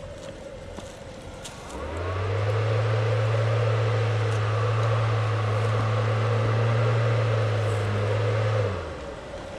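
A motor starts up about two seconds in, runs with a steady, even-pitched hum and whir for about seven seconds, and stops near the end.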